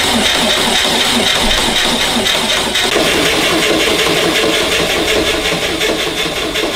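Starter motor cranking a freshly rebuilt air-cooled VW Beetle flat-four without it firing, a steady whine over an even pulsing of compression strokes; the first cranking, done with the coil disconnected to build oil pressure. The tone of the cranking changes about three seconds in.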